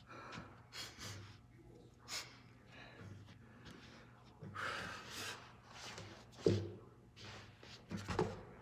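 A gymnast breathing hard, with several loud exhales. A sharp knock comes about six and a half seconds in, and more knocks follow near the end as his hands take the pommels of the pommel horse and he swings on.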